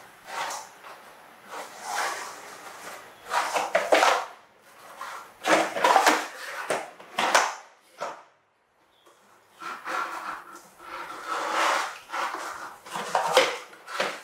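Plastic toy dump truck clattering and scraping on a hard floor as a baby monkey pushes it about and tips it over, in irregular knocks and scrapes with a short quiet gap about eight seconds in.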